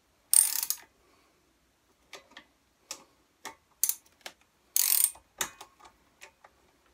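Socket ratchet wrench clicking in short runs, with single clicks between, as the ignition coil's mounting bolts on a Briggs & Stratton engine are tightened down once the coil-to-flywheel gap is set. The longest runs come about half a second in and again about five seconds in.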